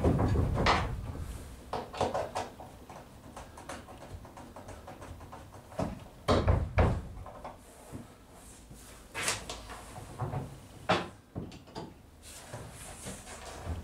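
Irregular knocks and clatter of timber and hand tools being handled against a fibreglass boat hull, with heavier thumps at the start and about six seconds in.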